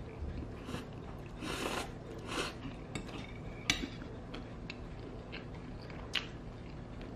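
Metal fork scraping and clinking lightly against a porcelain plate while twirling spaghetti, in scattered small clicks, with a sharper clink about halfway through and another near the end.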